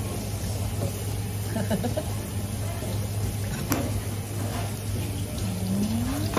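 Steady low hum of running machinery, with a sharp click a little past halfway and a short rising tone near the end.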